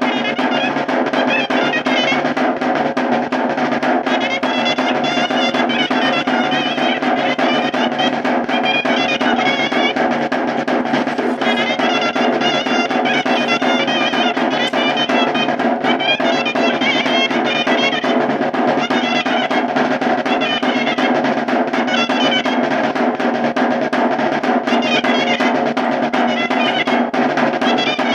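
Chirimía playing a lively, ornamented melody over a continuous roll on a caja snare drum, as in traditional tastoanes dance music.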